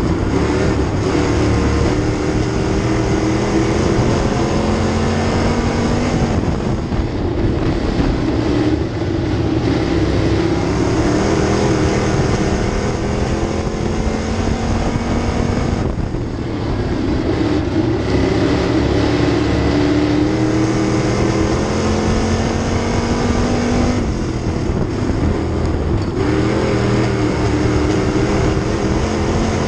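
Sportsman dirt-track race car's V8 engine at racing speed, heard from inside the cockpit. The pitch climbs on the straights and falls back three times as the driver lifts off for the turns, over steady wind and track noise.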